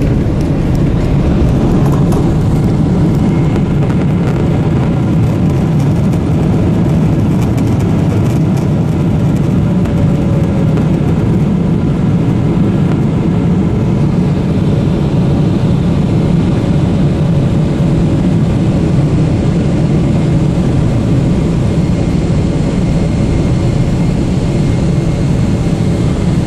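Steady loud rumble heard inside the cabin of a Boeing 777-300ER during its landing rollout on the runway, engine and rolling noise with no sudden changes.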